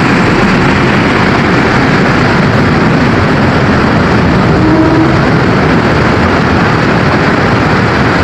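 Diesel-hauled passenger train moving through the station close by, a loud steady rumble of locomotive engine and running gear.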